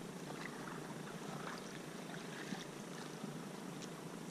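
Small electric trolling motor running steadily, pushing a canoe, as a constant low hum. Faint scattered ticks of water sound above it.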